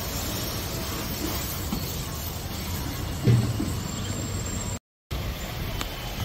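High-pressure car-wash washer spraying water: a steady hiss, with a brief low thump about three seconds in. The sound cuts out completely for a moment near five seconds.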